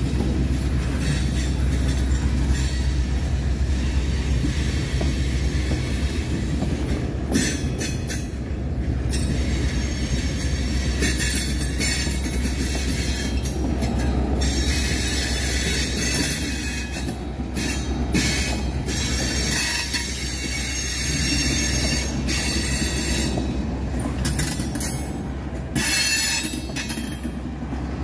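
Freight train's tank cars rolling past close by: a steady low rumble of steel wheels on the rails, with high-pitched wheel squeal coming and going in patches.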